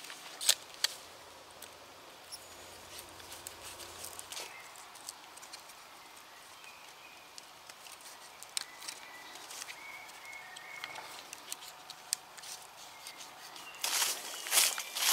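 A knife cutting into a green branch: two sharp snicks about half a second in, then scattered small cracks and ticks as the split stick end is worked apart by hand. Birds chirp faintly in the middle, and near the end there is a louder cluster of knocks and rustling.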